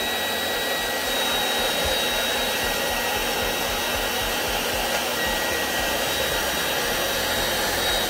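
Hand-held hair dryer blowing steadily, a rush of air with a steady high whine, heating the hot glue on dent-puller tabs to soften it for scraping off.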